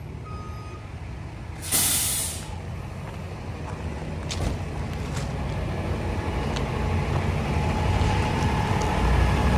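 16-ton medium-duty tow truck's diesel engine running as it backs slowly across railroad tracks, growing louder toward the end. A short, sharp air-brake hiss comes about two seconds in.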